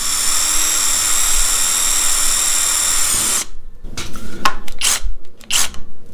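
Two cordless impact drivers, a Craftsman CMCF820 and a Skil ID573901, drilling side by side into a wooden beam with drill bits, their motors running in a steady high whine. The whine cuts off about three and a half seconds in, and several short, sharp sounds follow.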